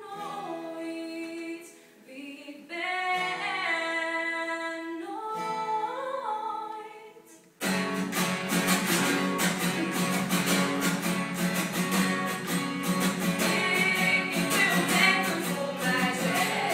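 Women singing a slow melody unaccompanied, then about halfway through an acoustic guitar comes in strumming, louder, under the singing.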